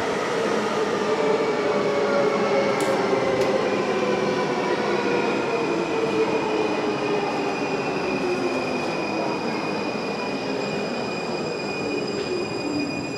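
Siemens/Bombardier Class C Munich U-Bahn train pulling into an underground station and braking. Its electric traction motors whine in several tones that slowly fall in pitch as it slows, and a high wheel squeal comes in near the end.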